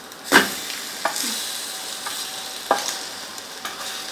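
Egg-and-milk-soaked bread slices sizzling as they fry in ghee in a non-stick pan. Sharp knocks come as a slice is turned over with a spatula: the loudest about a third of a second in, and fainter ones about a second in and near three seconds. The sizzle grows louder after the second knock.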